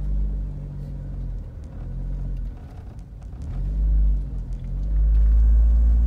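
Car engine and road rumble heard from inside the cabin, the engine hum rising and falling in pitch a few times as the car creeps along.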